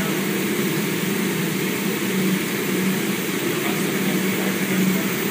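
Electrodynamic shaker test rig running with an electric car on its platforms: a steady machine drone with a strong low hum, no breaks or knocks.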